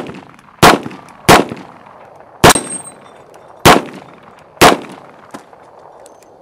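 Ruger Security Six revolver fired double action: a string of shots a second or so apart, the first right at the start and five more following, each trailing off in a brief echo. A faint click comes shortly after the last shot.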